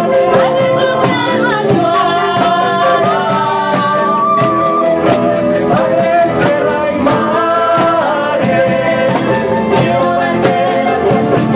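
Group of voices singing a song together to strummed acoustic guitar, with a steady strumming rhythm.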